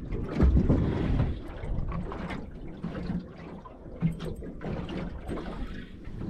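Water slapping and sloshing against a small boat's hull, with a few knocks, loudest about half a second in.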